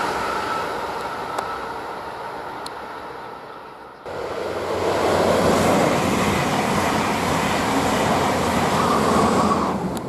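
Passenger trains passing on an electrified main line: an ICE 3 high-speed train's rushing running noise fades away over the first four seconds. Then a loco-hauled train of passenger coaches rolls past, suddenly louder, with steady wheel and air rush.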